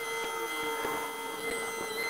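Walking excavator's machinery, hydraulics and engine, played back eight times fast: a steady whine of several constant high tones, with scattered short clicks and a pitch that dips and rises about half a second in.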